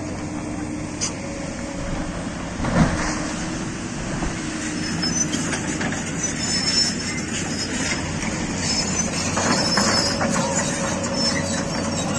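JCB tracked excavator's diesel engine and hydraulics running steadily, with one heavy thud about three seconds in. Voices of onlookers underneath.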